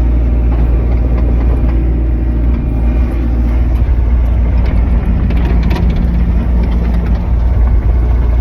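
John Deere excavator's diesel engine running steadily, heard from inside the cab.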